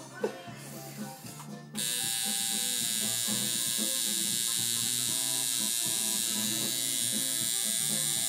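Electric tattoo machine switched on about two seconds in, then buzzing steadily as it needles the skin.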